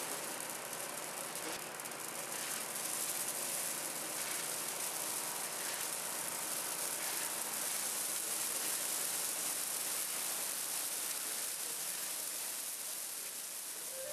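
Christmas tree burning as it goes up in flames: its branches and needles crackle in a dense, fast stream of pops over a hiss, growing a little louder about three seconds in.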